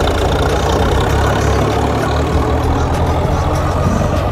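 Swaraj 855 FE tractor's three-cylinder diesel engine running steadily under load in third (medium) gear, pulling a loaded trolley.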